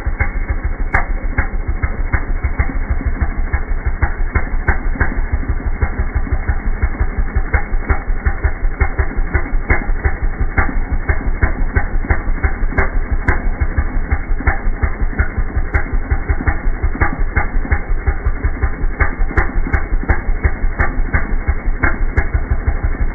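Two-stroke chainsaw engine idling, slowed down so that each firing is heard as a separate low pop in a fast, even beat. The idle putters on the edge of detonation, which is put down to the saw's fixed ignition advance being set high for high revs and so too far advanced at idle.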